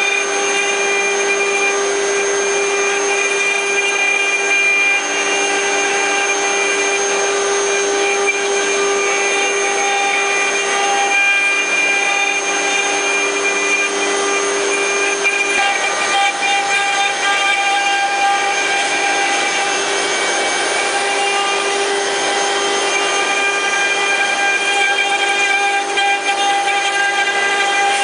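Multi-spindle four-axis CNC wood carving machine running, its row of router spindles cutting wood together: a steady whine of several constant tones over a hiss of cutting.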